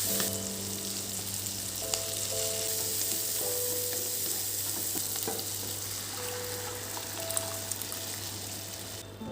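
Food sizzling as it fries in a hot pan, stirred with a few light taps of a utensil. The sizzle stops just before the end.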